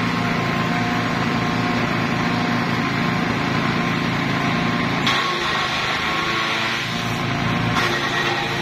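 A small engine-driven chaff cutter runs steadily while bunches of green grass are fed in and chopped. The chopping adds a rough hiss over the engine's hum, and the sound shifts abruptly about halfway through as a new bunch goes in.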